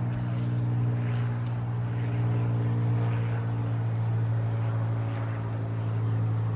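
A steady low motor drone holding one pitch with overtones, with no rise or fall.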